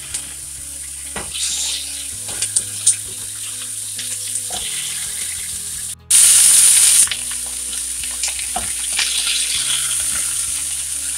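Pork chops sizzling in hot fat in a frying pan as they are laid in and moved with metal tongs, with a few light knocks. About six seconds in the sound cuts out for an instant and then a loud burst of hissing lasts about a second.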